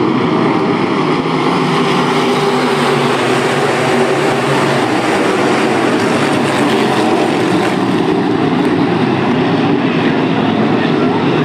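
A pack of IMCA Sportmod dirt-track race cars running at full throttle under the green flag, their V8 engines blending into one loud, steady drone.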